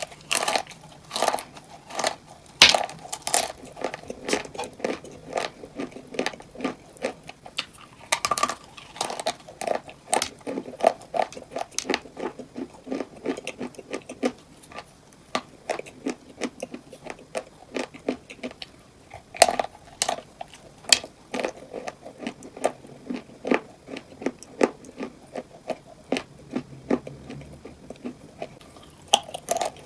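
Biting and chewing cupcakes filled with crunchy items: a steady run of crisp crunches, with a few louder bites along the way.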